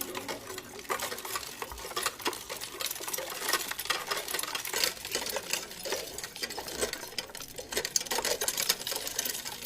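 Rapid, irregular mechanical clattering of many small clicks.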